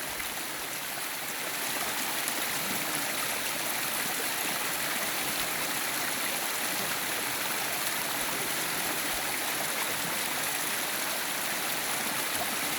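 Valley stream water flowing in a steady, even rush.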